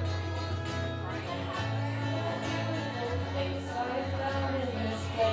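A live indie-rock band playing, with a strummed acoustic guitar and a drum kit over a steady low bass note.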